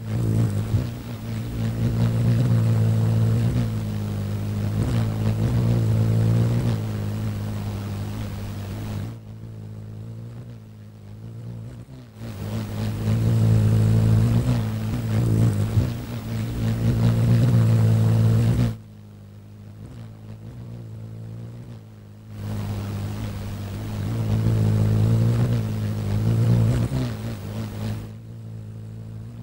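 Low whirring hum of hummingbird wings, a steady low pitch with overtones. It swells loud three times and drops suddenly in between to a quieter, duller hum.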